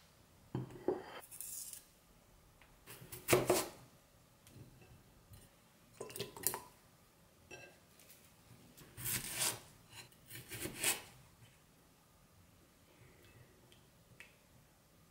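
Kitchen prep sounds: a ceramic plate set down on a wooden table and cut potato wedges handled in a glass bowl, giving about six separate short clatters and clinks, the loudest a little over three seconds in.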